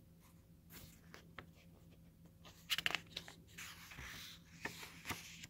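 A book page being turned by hand: faint paper rustling and sliding, with a few soft taps and a sharper crinkle about three seconds in.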